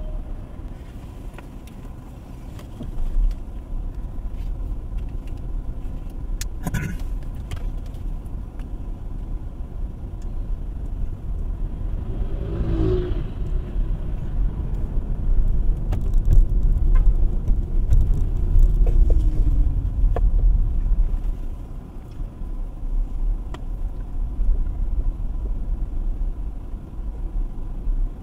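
A car driving slowly in city traffic, heard from inside the cabin: a steady low road and engine rumble with a few light knocks and a brief swell of passing traffic midway.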